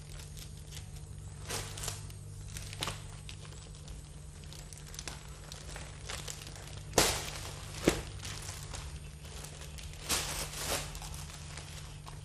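Uninflated foil balloons rustling and crinkling as hands sort through a stack of them, with a few sharper crackles, the loudest about seven and eight seconds in.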